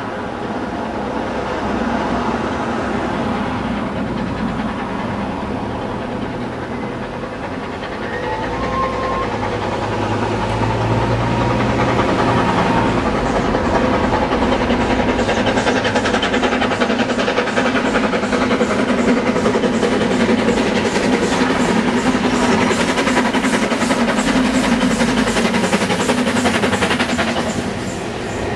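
Steam locomotive hauling a train of coaches, approaching and passing close by. Its sound grows louder from about eight seconds in, and from about the middle it becomes a fast, even rhythm of exhaust beats over the low rumble of wheels on the rails.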